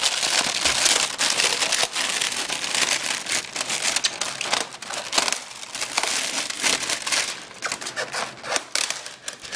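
Packaging being handled and pulled apart, a continuous crinkling and crackling with many small clicks.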